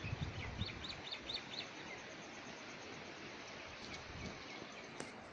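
A small bird calling, a quick run of about five short high chirps in the first couple of seconds, over faint steady outdoor background noise. A single sharp click near the end.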